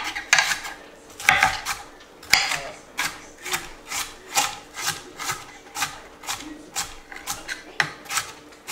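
Chef's knife dicing peeled onions on a plastic cutting board: a steady run of chops about twice a second, each a sharp knock on the board with a short scrape of the blade through the onion.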